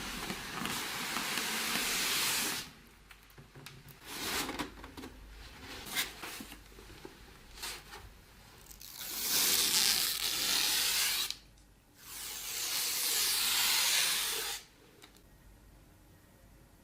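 Three long hissing bursts of two to three seconds each, with short knocks and rustles between them.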